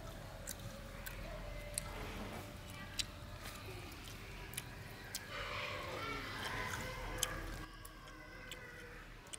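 Irregular sharp clicks and taps, with a faint voice for a couple of seconds about five seconds in.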